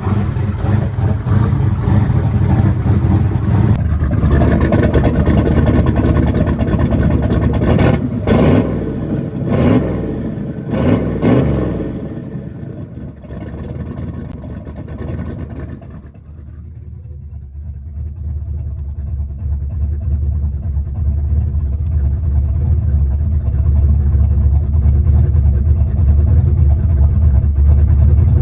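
Turbocharged 383 stroker small-block Ford V8 running as it warms up, blipped a few times about eight to eleven seconds in, then quieter for a few seconds before settling into a steady idle.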